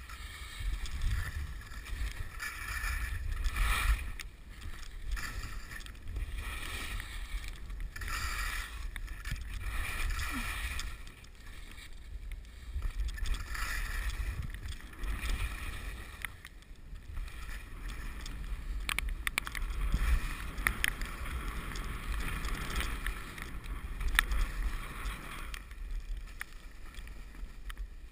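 Wind buffeting the microphone of a skier-worn camera during a downhill run, with repeated swishes of skis turning through wet, heavy snow every couple of seconds. A few sharp clicks come in the second half.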